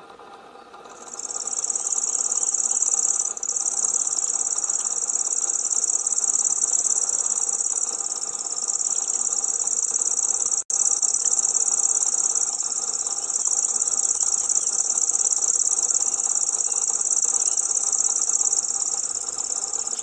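Common grasshopper warbler reeling: one long, unbroken high insect-like trill that starts about a second in, with a slight hitch after a couple of seconds and a split-second break about halfway through. A faint steady hum lies underneath.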